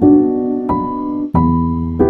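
Background music: a piano-like keyboard playing sustained chords, a new chord struck about every two-thirds of a second.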